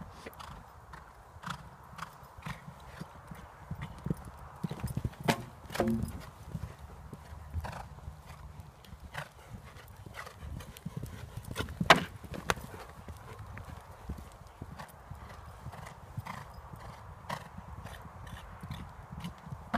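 Horse cantering on a sand arena, its hoofbeats thudding at a steady rhythm, with a sharp knock about twelve seconds in.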